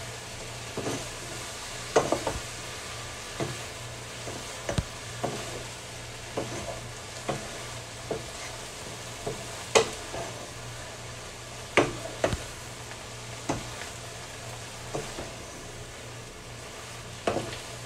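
Bean sprouts and tofu sizzling in a frying pan as they are stir-fried, with a utensil knocking and scraping against the pan every second or two; the sharpest clacks come about ten and twelve seconds in.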